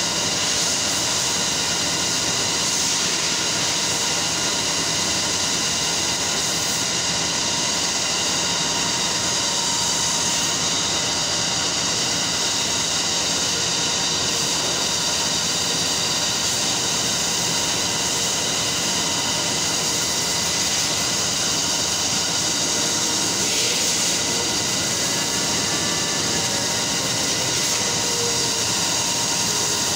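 Steady drone of running textile-mill machinery: an even rush of noise with several steady whining tones over it, unchanging throughout.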